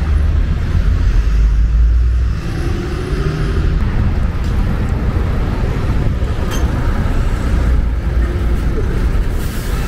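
Concrete mixer truck's diesel engine running hard with a heavy low rumble, strongest in the first couple of seconds, as it starts turning the drum to discharge concrete.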